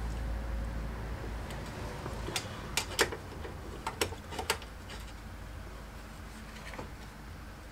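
A cluster of sharp clicks and taps from small hand tools and metal parts being handled, about half a dozen between two and five seconds in, the loudest around three seconds, over a low steady hum.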